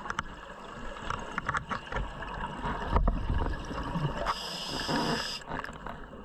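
Scuba diver breathing through a regulator underwater: a burst of exhaled bubbles rumbling and gurgling around the middle, then the hiss of an inhalation near the end.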